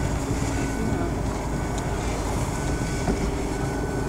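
Audi RS6 driving slowly along a snow-covered road while towing skiers: a steady low rumble of engine and tyres.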